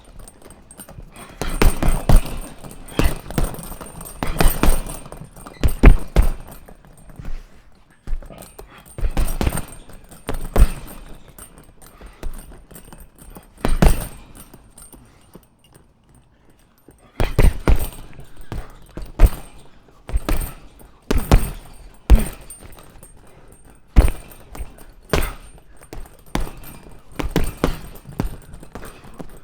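Punches landing on a punching bag: a run of sharp thuds in irregular combinations, with short pauses and one longer lull about halfway through.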